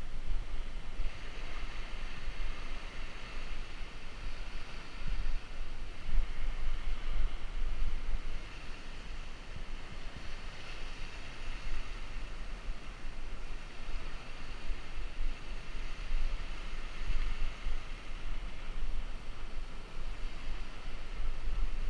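Wind buffeting the microphone of a camera on a moving bicycle: a steady low rumble that comes and goes in gusts, over an even hiss.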